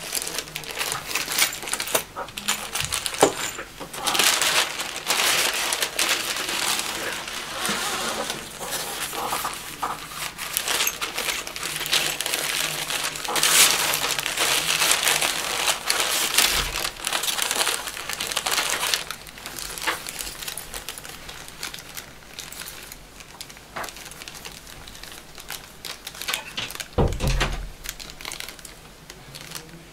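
Grey packing paper rustling and crinkling as it is handled and unfolded, busier and louder for the first two-thirds and softer after that. A dull low thud comes near the end.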